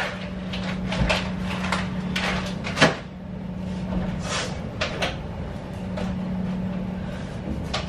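Refrigerator door opened and groceries being put away: a series of light knocks, clunks and rustles, the sharpest a little before three seconds in, over a steady low hum.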